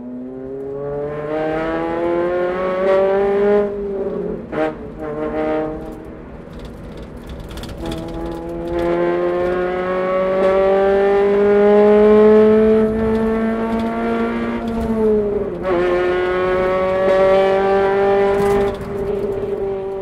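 Honda Civic Type R (FD2) 2.0-litre K20A four-cylinder engine and exhaust pulling hard in a road tunnel. The pitch climbs in long rising sweeps, broken by gear changes about four and fifteen seconds in.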